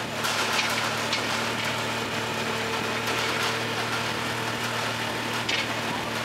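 Side-by-side UTV engine running steadily as the vehicle drives along a dirt road, a constant low hum with road and tyre noise and a few light rattles.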